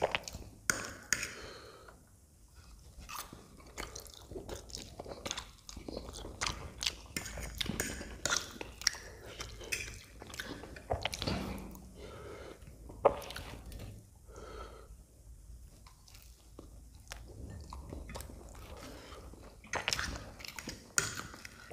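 Close-miked chewing and biting of Maggi noodles and crisp fried samosa pastry, with crunches and many sharp clicks. The loudest click comes a little past the middle.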